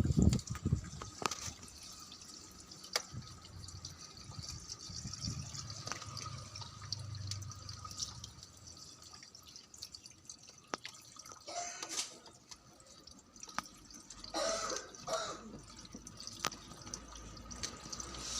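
Water dripping: scattered single drops falling at uneven intervals.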